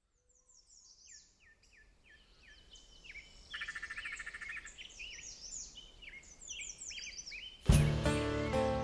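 Dawn chorus of several songbirds chirping and whistling, with a brief rapid trill a few seconds in. Near the end, music starts abruptly and much louder than the birds.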